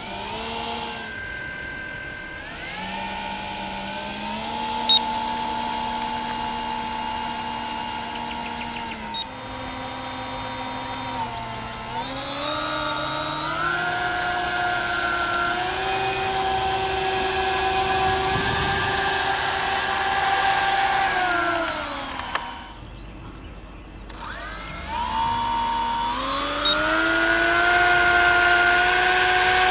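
Twin Torcster A2826 brushless electric motors with 7x4.5 propellers on a radio-controlled Dornier Wal flying-boat model, whining as it taxis on water. The pitch steps up and down with the throttle, drops away almost to nothing about three-quarters of the way through, then climbs back up.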